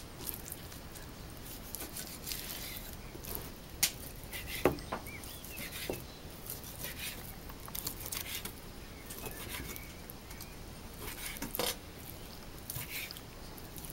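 Kitchen knife cutting raw pork shoulder into cubes on a wooden cutting board: scattered soft taps and knocks of the blade against the board, with handling of the meat in between.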